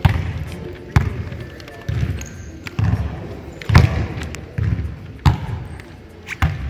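Basketball bouncing on a hardwood gym floor, about once a second, each bounce echoing through the hall, with one louder hit a little before the middle.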